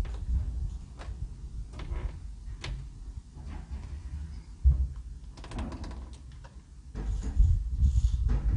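A wooden door being handled: its round metal knob is gripped and turned, with scattered clicks and knocks, and a louder patch of low rumbling and rattling near the end.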